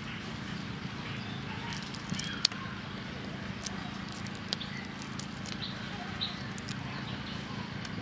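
Shells of cooked shrimp cracking and crackling as they are peeled apart by hand: scattered sharp clicks, the loudest about two and a half seconds in, over a steady low hum.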